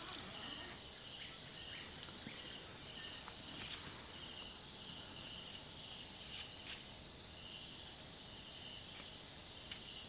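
Steady chorus of insects: a continuous high trill with a lower chirp pulsing in an even rhythm, a little under twice a second.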